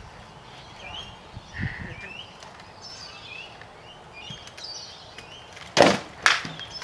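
Rattan swords striking shields and armour in SCA heavy combat: two loud, sharp blows near the end, about half a second apart, with a third landing just as it ends. Birds chirp faintly in the background.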